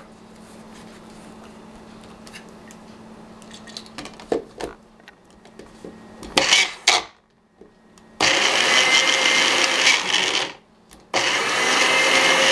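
Magic Bullet personal blender run in presses: a short burst, then two runs of about two seconds each with a brief pause between, its motor whining as the blades chop basil, garlic, sunflower seeds and olive oil into pesto. Before that, a few clicks and knocks as the filled cup is set onto the motor base.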